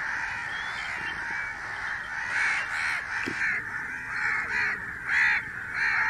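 A flock of crows cawing, many calls overlapping into a continuous chorus, with single louder caws standing out over it from about two seconds in.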